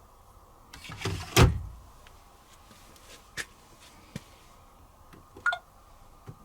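A part of an Asko Quattro W6098X washing machine pushed shut with one loud bang after a brief sliding scrape, followed by a few light clicks.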